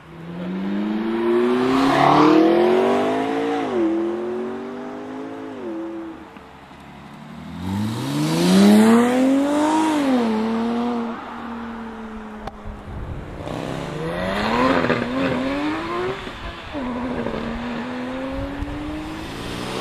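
Sports car engines accelerating hard, one after another. Each pull rises in pitch and then drops sharply at a gear change, three times over.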